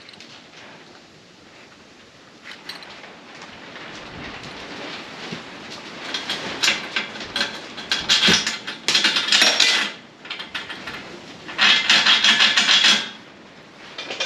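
Hand tool scraping and rubbing on a steel frame in short, scratchy bursts, with a few clicks. The bursts come in the second half, and the longest run lasts about a second near the end.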